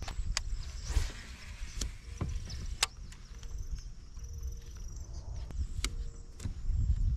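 Scattered sharp clicks and knocks, about ten of them and irregularly spaced, over a low, uneven rumble.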